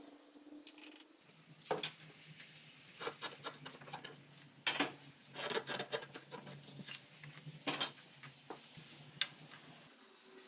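Irregular light knocks and clicks of a marking knife and small wooden blocks being handled, set down and scribed around on a pine board. A faint low hum runs underneath and stops near the end.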